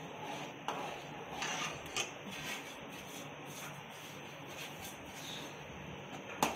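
Metal spoon stirring semolina into boiling sugar water in an aluminium kadai: quiet scraping with a few light knocks against the pan, over a low steady hiss.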